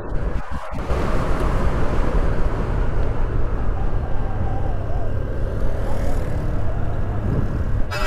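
Motorcycle riding along a winding mountain road: the engine running under a steady, loud rumble of wind buffeting the microphone.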